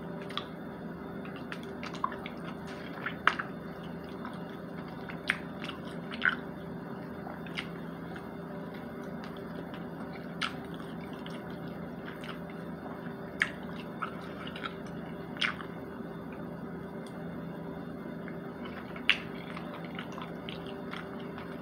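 Close-up eating sounds: wet smacks and sharp clicks of chewing and fingers handling saucy food, scattered irregularly, over a steady low hum.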